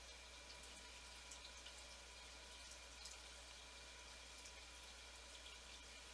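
Near silence: faint steady hiss and low hum of the recording, with tiny faint ticks.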